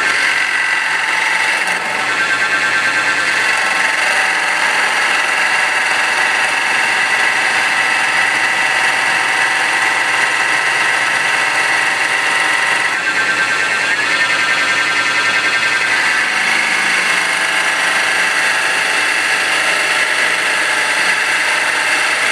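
Mini wood lathe running while a flat turning chisel cuts into a spinning wooden spindle: a steady whine with a cutting hiss. The pitch shifts about two seconds in and again around thirteen seconds in.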